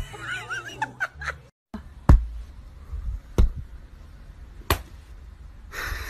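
Three sharp slaps, evenly spaced about a second and a quarter apart, over a low background. Before them there is a short wavering high-pitched sound.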